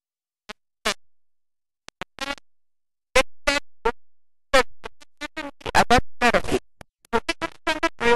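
A woman's voice broken into short clipped fragments with dead silence between them, sounding glitchy and synthetic, as in badly dropped-out recorded speech. The fragments are sparse for the first few seconds and come thick and fast from about three seconds in.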